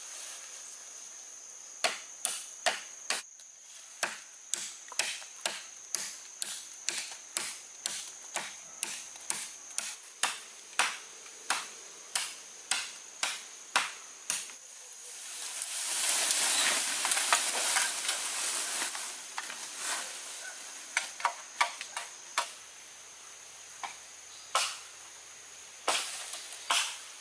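Machete chopping into the base of a bamboo culm, sharp strokes about twice a second, then a long rustle of leaves about sixteen seconds in as the cut bamboo comes down through the foliage, followed by a few more scattered chops. A steady high-pitched drone sits underneath.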